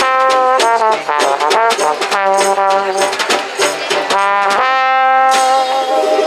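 Trombone playing a swing jazz melody, a run of short notes followed by one long held note a little past the middle, over drums played with brushes and a strummed banjo.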